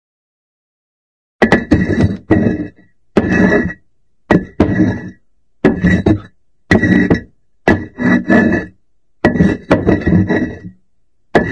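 Cartoon sound effect of the Hanna-Barbera kind: a run of knocks or thunks starting about a second and a half in. They come in quick clusters of one to three strikes, about one cluster a second, each with a short ringing tone.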